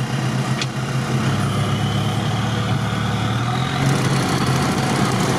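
UAZ off-road vehicle's engine running steadily at low revs, heard from inside its cab.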